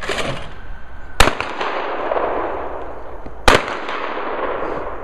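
Two shotgun shots about two seconds apart, each followed by a long echoing tail.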